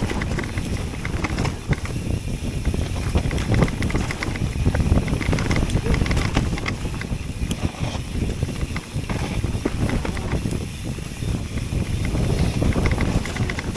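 E-mountain bike riding down a leaf-covered forest trail: tyres rolling over leaves and dirt, with frequent clicks and rattles from the bike over bumps and wind buffeting the microphone.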